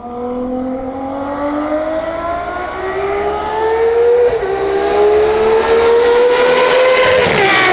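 Ferrari 599XX's V12 accelerating hard, its pitch climbing through the gears with an upshift about four seconds in and another near the end, getting louder as the car approaches.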